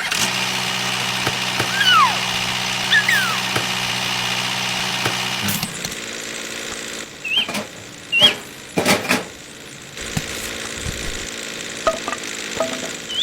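A motor runs steadily with a low hum. About halfway through its tone changes to a different steady drone. Short, high, chirping squeaks sound on top, a few at a time.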